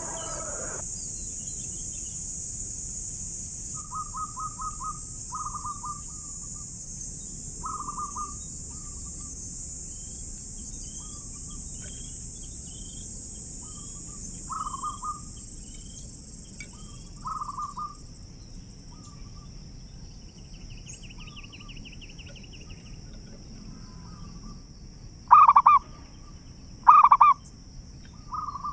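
Zebra doves (perkutut) cooing: short stuttering, trilled coos repeated every few seconds, with three much louder calls near the end. A steady high-pitched hiss runs underneath.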